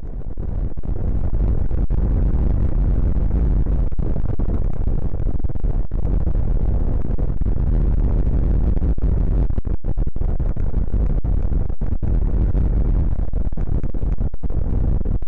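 Microlight trike in flight: steady, loud wind rush on the microphone over the engine noise, heaviest in the low end. It fades in over the first second and has brief dropouts here and there.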